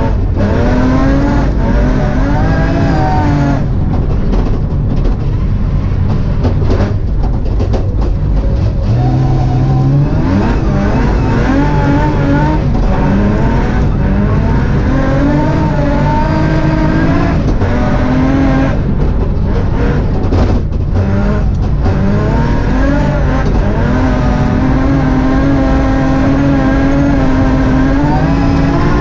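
BMW M3 rally car's engine, heard from inside the cockpit, revving hard on a snow stage. The revs climb and drop again and again through gear changes and brief lifts off the throttle.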